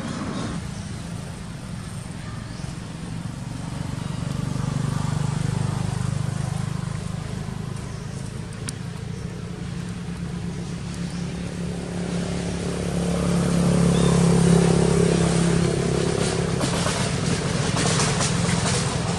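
Road traffic going by: motor vehicle engines hum and swell twice as vehicles pass, loudest about five seconds and about fourteen seconds in.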